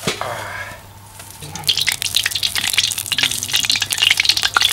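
Lump of mutton fat frying in a hot cast-iron kazan, sizzling and crackling with a dense run of fine pops that grows loud about one and a half seconds in as the fat renders.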